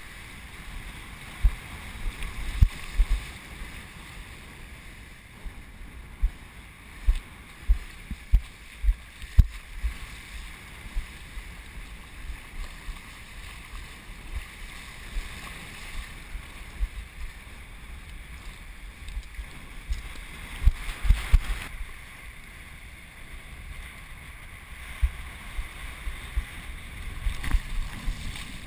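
Wind buffeting a body-worn action camera's microphone in irregular low thumps, over a steady hiss of wind and shallow surf washing across the flats.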